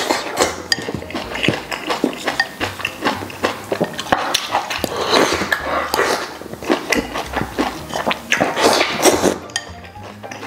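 Close-miked eating: crunchy chewing of bok choy with wet mouth smacks and slurps of glass noodles.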